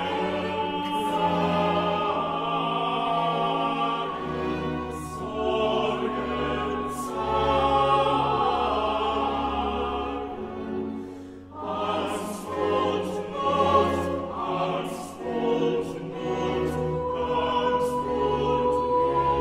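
Background music: classical-style choral singing over an orchestra, with a brief lull about halfway through before it swells again.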